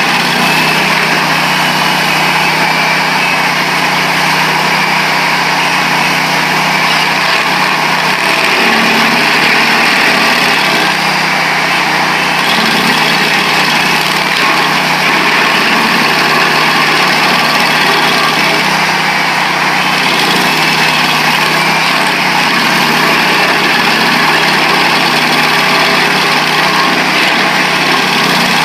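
Vermeer 222 stump grinder's Honda engine running steadily at high speed while its cutter wheel, with half its teeth missing, grinds into a hard old pine stump.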